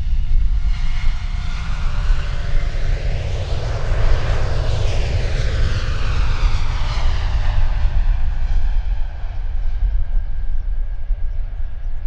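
Boeing 787's Rolls-Royce Trent 1000 turbofans at takeoff thrust during the takeoff roll, passing by: the roar swells to its loudest about four to five seconds in, then drops in pitch as the jet moves away. A steady low wind rumble on the microphone runs underneath.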